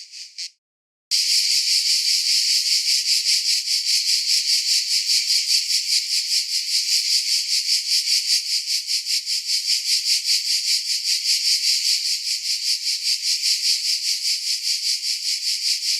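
Cicadas calling: a last pulsed note or two, a brief break about half a second in, then from about a second in a loud, continuous, fast-pulsing high buzz.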